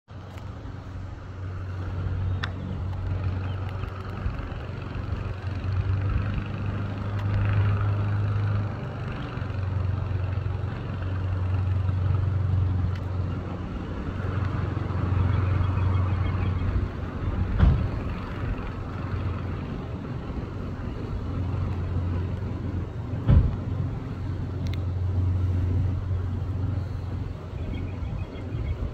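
A low, steady motor hum that swells and eases at times, with two sharp knocks about six seconds apart in the second half.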